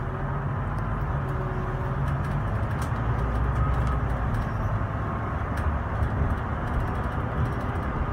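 Scania K320IB bus engine and drivetrain running while the bus drives along, heard inside the passenger cabin, a steady low drone that grows slightly louder over the first few seconds as it picks up speed. Light clicks and rattles from the cabin fittings sound now and then.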